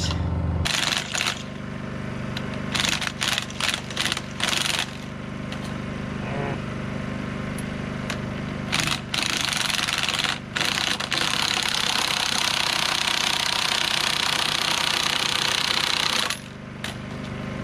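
Makita LXT cordless impact wrench hammering on an alternator pulley nut: a few short bursts, then one long run of about seven seconds with a brief break. A steady low hum runs underneath.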